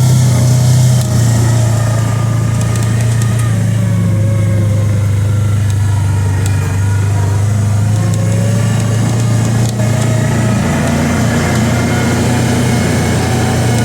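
Kawasaki Teryx 800 side-by-side's V-twin engine running steadily at low revs, with only a slight rise and fall in pitch.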